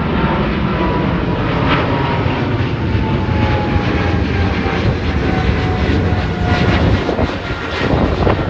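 British Airways Boeing 777 jet engines at full climb power just after takeoff, passing overhead and climbing away: a loud, steady roar with a thin whining tone that slowly falls in pitch.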